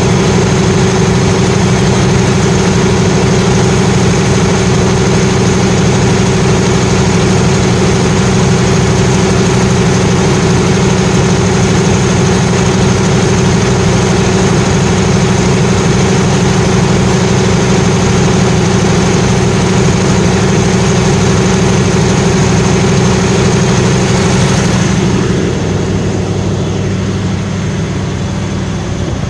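Large Perkins diesel engine of a 500 kVA generator set running at a steady speed, with a loud, even drone and a constant high whine above it. About 25 seconds in, the upper hiss falls away and the sound gets somewhat quieter.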